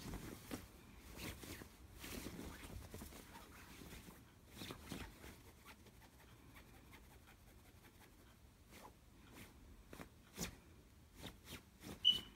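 A hand scratching and scrabbling on a cotton duvet cover: soft rustling with scattered light ticks. Near the end comes a brief high squeak, the loudest moment.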